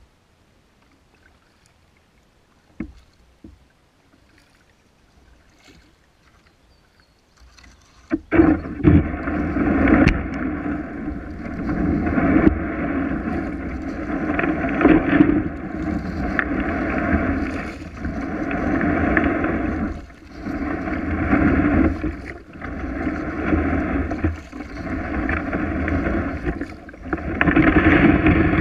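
Kayak paddle strokes in creek water: splashing and swishing that swells and dips about every two seconds as the blades dip on alternate sides. The first eight seconds are nearly quiet, with a few faint clicks, before the splashing starts.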